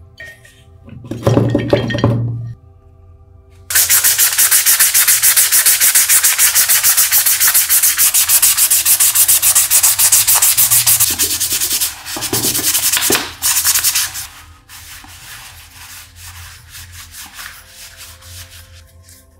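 Stiff hand brush scrubbing a small metal lamp part in fast, even back-and-forth strokes for several seconds, stopping and then giving a couple of shorter bursts of scrubbing. Soft background music is left after that.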